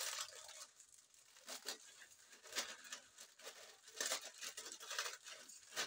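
Plastic instant-noodle seasoning sachets crinkling and tearing as they are opened and squeezed over a pot, in irregular crackles.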